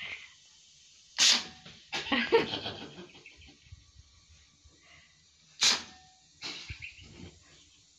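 Two sharp sneezes about four seconds apart, each a short loud burst, with a little low voice sound after the first.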